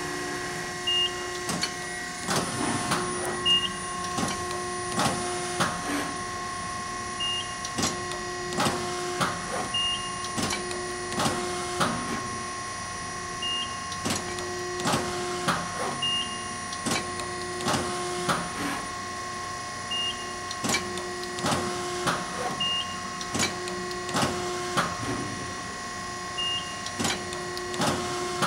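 Strippit Super 750 SG 44-ton hydraulic fabricator running a CNC program: a steady hydraulic hum, the punch ram cycling with sharp clacks in irregular clusters, and a motor tone coming and going between strokes as the two-axis gauge moves. A short high tone sounds roughly every three seconds.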